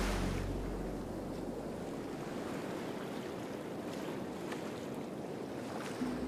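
Background music fades out about a second in, leaving a steady rushing noise; the music comes back in near the end.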